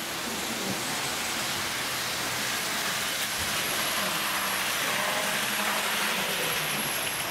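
H0 model trains running on the layout: a steady rolling hiss of small wheels on track with a faint motor hum, swelling a little past the middle.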